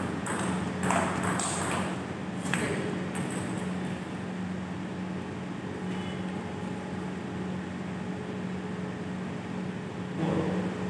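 Table tennis ball clicking sharply off paddles, the table and the floor about five times in the first two and a half seconds, then a steady low hum.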